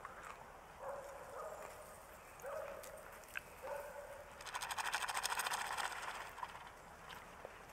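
Small glass salt shaker with a metal cap shaken over a pot of popcorn: a fast rattling of salt grains lasting about two seconds, about halfway through. Three short tonal notes are heard before it.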